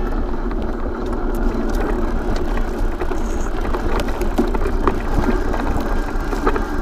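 Mountain bike rolling along a dirt trail: steady tyre rumble with scattered clicks and rattles from the bike over bumps.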